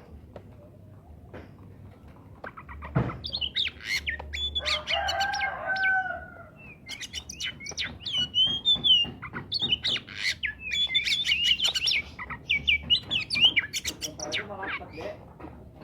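Oriental magpie-robin singing in rapid, varied phrases of whistles, chirps and trills, starting about three seconds in and carrying on until near the end. A lower, drawn-out call from another bird sounds briefly around five seconds in.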